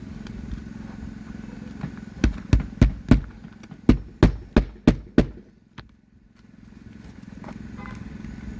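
A hammer striking roofing nails to fasten a new asphalt shingle: nine sharp blows in two quick runs, four then five, at about three a second, over a steady low hum.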